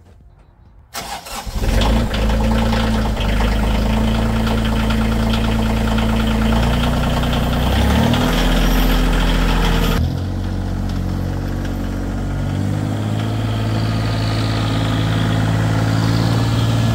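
Kioti CX2510 compact tractor's diesel engine starting about a second in and then running steadily, its pitch shifting a few seconds later as the revs change.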